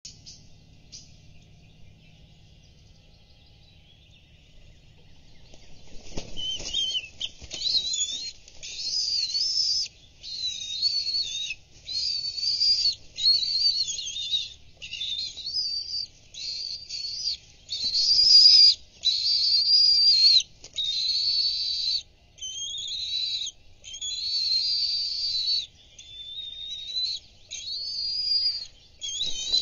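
A bald eagle lands on the nest with a flap of wings about six seconds in. The 10-week-old eaglet at once starts a long run of shrill, wavering food-begging calls, about one a second.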